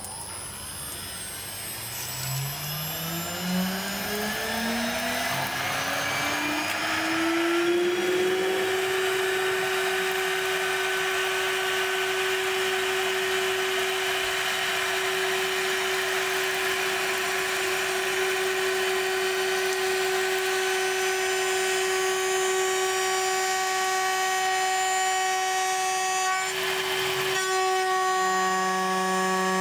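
CNC spindle with a 10 mm insert face mill spinning up, its whine rising in pitch for about eight seconds and then holding steady while it takes a heavy facing cut in 4140 alloy steel. A short burst of noise comes near the end, and then a lower hum joins the whine.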